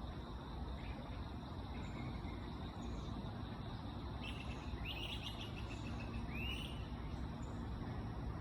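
A small bird gives a quick run of chirps about halfway through, then one arching call a second later. These sit over a steady low rumble and a faint, steady high insect tone.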